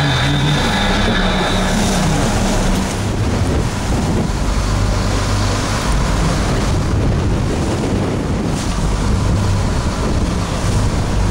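Fishing boat's engine running with a steady low hum, under loud wind buffeting the microphone and waves washing against the hull.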